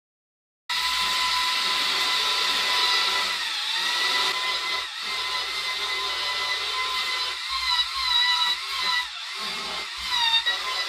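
Corded handheld electric woodworking tool working a hardwood slab: a steady, high motor whine that sets in abruptly just under a second in and sags in pitch several times as the tool is loaded against the wood.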